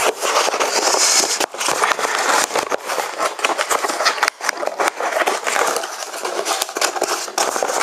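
Cardboard packaging being handled and folded shut: continuous rustling and scraping with many sharp taps and clicks.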